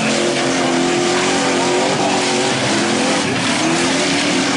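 Full-size pickup truck engines racing on a dirt track, their pitch rising and falling with the throttle and climbing toward the end, over a steady noise of tyres and engines.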